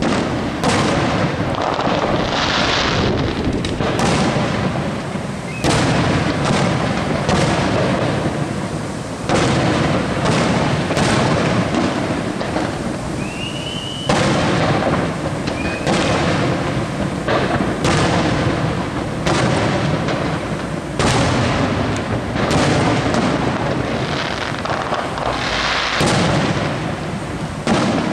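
Aerial firework shells bursting in steady succession, with a sharp bang about every second over a continuous low rumble of echoes. A short rising whistle sounds about halfway through.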